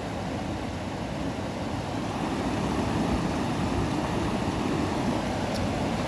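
Steady rush of river water pouring over rocky rapids.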